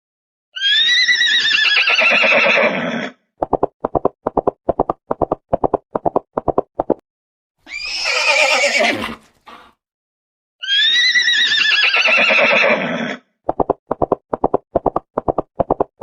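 Horse whinnying three times, each whinny followed by a run of hoofbeats clip-clopping at about four strikes a second.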